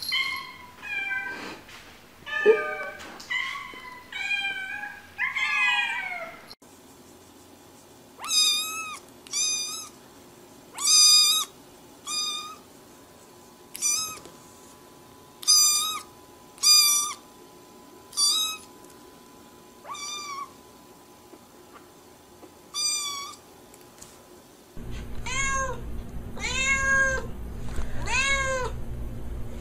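Cats meowing in a string of short calls. First a few meows rise and fall in pitch. Then a single cat gives high, short meows about once a second, and in the last few seconds a cat meows in quicker succession over a steady low hum.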